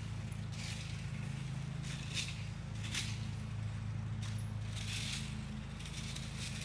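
Dry leaf litter and brush rustling and scraping about five times, a second or so apart, as it is stepped on or raked, over a steady low hum.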